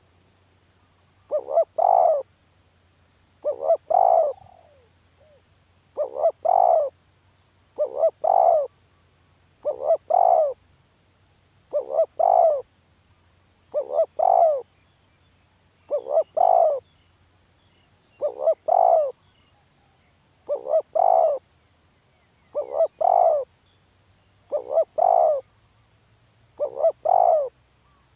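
Spotted dove cooing: a three-note coo, two short notes then a longer one, repeated about every two seconds.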